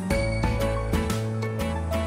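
Background music with a steady bass line and sustained notes that change every half second or so.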